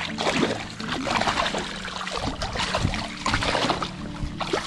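Irregular splashing and trickling of water around a landing net holding a brown trout in the shallows at the river's edge.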